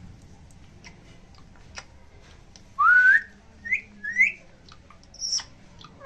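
Indian ringneck parakeet whistling: a loud rising, wavering whistle about three seconds in, then two short rising chirps and a brief high call near the end. A few faint clicks come before the whistle.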